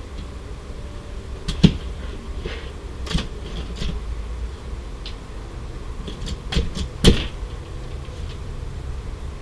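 Scattered sharp metal clicks and knocks from the rooftop tent's telescoping aluminium ladder and its fittings being handled, over a steady low rumble. The loudest knock comes about seven seconds in.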